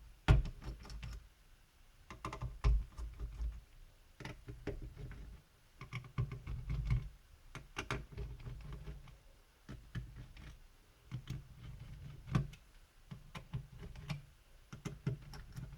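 Irregular small clicks, taps and knocks of a screwdriver loosening the screws that hold a laptop's cooling-system heatsink, along with the parts being handled.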